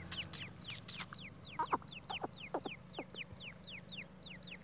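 Grey francolin chick peeping: a steady run of short, high, downward-sliding chirps, about four a second. A few lower, louder downward calls come in around the middle, with some brief clicks near the start.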